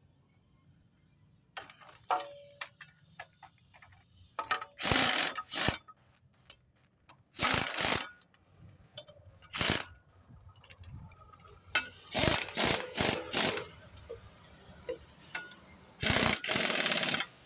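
Impact wrench on a wobble-joint extension running bolts in, in a series of short loud bursts, with light clicking and rattling of the socket and bolts between them.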